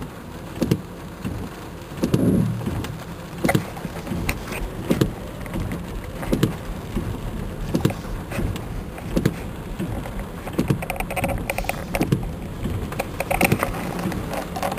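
Vehicle running in a heavy rainstorm with a steady hiss, and short knocks about every second and a half.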